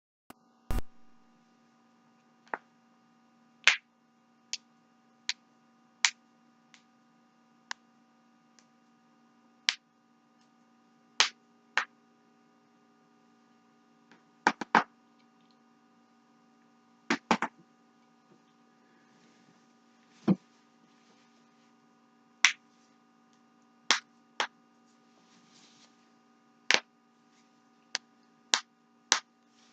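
Neck and back joints cracking: about two dozen sharp pops and cracks at irregular intervals, some in quick pairs, over a steady faint electrical hum.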